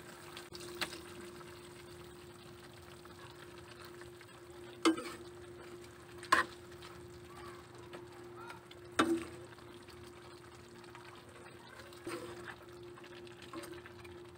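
Metal spoon stirring pork and liver in a pan of simmering sauce, with soft sizzling and several sharp clanks of the spoon against the pan, three of them loud. A steady low hum sits underneath.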